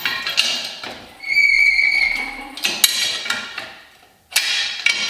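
Hand tools and metal parts clanking and knocking, with one ringing metallic clink held for about a second.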